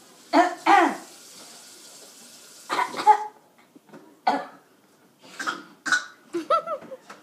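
A small child making short fake coughs, several of them in quick pairs, in imitation of a grown-up's cough. A steady hiss runs under the first three seconds and then stops.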